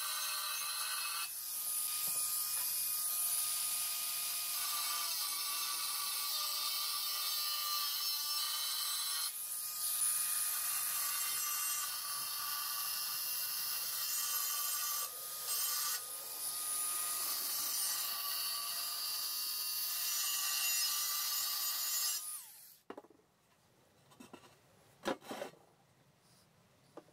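Cordless angle grinder with a cut-off disc cutting into a metal car wheel rim: a steady motor whine under a harsh grinding noise, dipping briefly a few times as the disc eases off. About 22 seconds in the grinder stops, followed by a few faint knocks.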